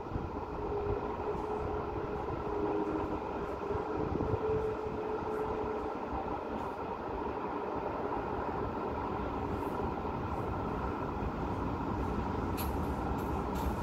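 Steady hum of road traffic heard from a high window, with a faint whine that holds for the first six seconds or so and a few sharp ticks near the end.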